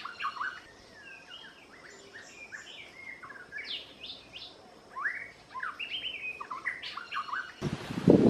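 Small birds chirping in quick, short rising and falling notes, in bursts with brief gaps. Near the end the chirping gives way to a loud rustling and scraping.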